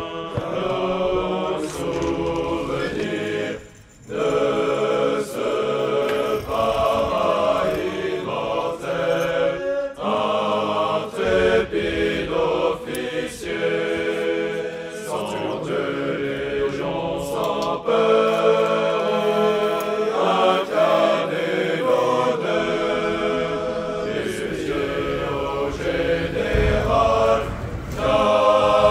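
A group of voices singing a chant together, with a short break about four seconds in.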